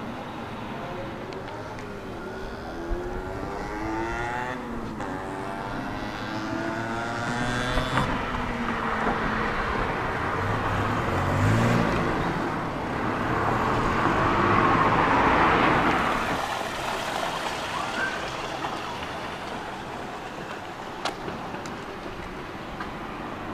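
A car's engine and tyres on a street, its engine pitch rising and falling, then the sound of it passing swelling to its loudest about two-thirds of the way through and fading toward the end.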